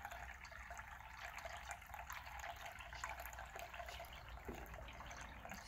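Steady rushing, water-like background noise with a low hum underneath.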